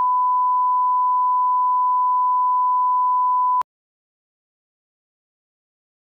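A single steady electronic beep tone, one pure pitch held for about three and a half seconds, that cuts off suddenly with a click.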